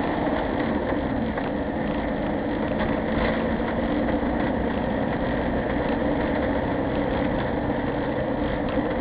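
A vehicle driving along, heard from inside the cab: a steady mix of engine and road noise with no sudden changes.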